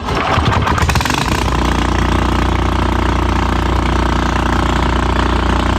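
291cc small engine starting up. It runs unevenly for about the first second and a half, then settles into a steady idle.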